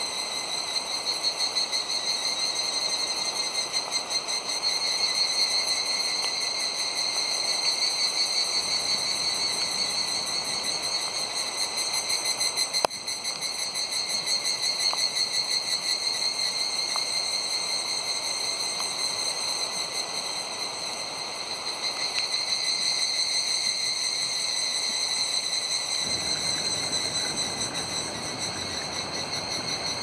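Cicadas droning in a steady, high, shimmering chorus. Near the end the rush of flowing river water joins in beneath it.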